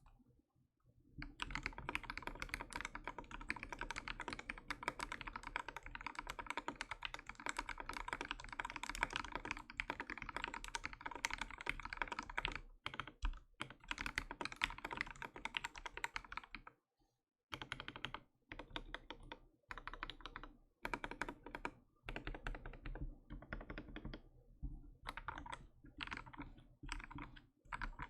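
Mechanical keyboard typing on a KBDFans x Vulcan Maja with a polycarbonate case, brass plate and Marshmallow switches. Fast, continuous keystrokes start about a second in. About halfway through, the typing breaks into short bursts separated by brief pauses.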